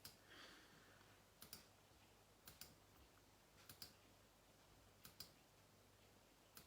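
Faint computer mouse clicks, coming in quick pairs about every second and a bit, five or six times.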